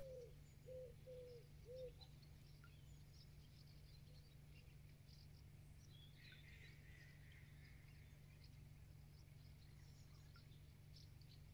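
Near silence with faint birdsong: a pigeon coos a few times in the first two seconds, then small birds chirp faintly and high-pitched.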